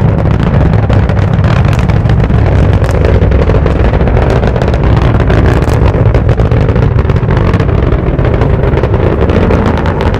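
Falcon 9 rocket's nine Merlin engines during liftoff and ascent: a loud, steady roar with continuous crackling.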